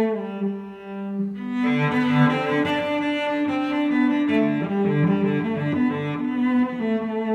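Instrumental background music: a melody of held notes, growing fuller and brighter as a lower part comes in about a second and a half in.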